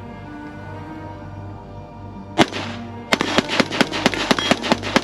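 Springfield Armory Hellion 5.56 bullpup rifle: a single shot about two and a half seconds in, then rapid semi-automatic fire at about five shots a second, heard over background music.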